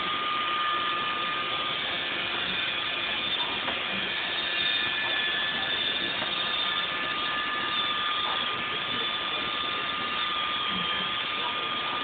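Roomba robot vacuum running on carpet: a steady whirring hiss with a thin, high, steady whine over it.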